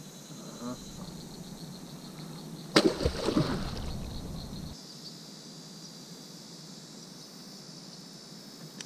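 A sudden splash about three seconds in, then a second or two of churning water, as a small alligator is prodded with a kayak paddle and dives. Insects drone steadily in the background.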